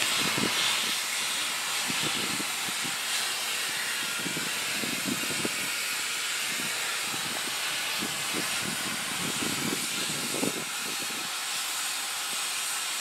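Steady hiss of air escaping at the coal train's broken coupling, most likely from the air brake line, with faint irregular low knocks.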